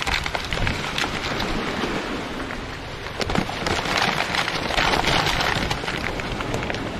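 A crinkly chip bag and a paper charcoal-briquette bag being handled and crumpled close by: a dense crackling, loudest about four to five seconds in.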